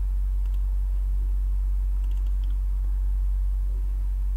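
A steady low hum on the recording, with a few faint computer mouse clicks about half a second in and around two seconds in.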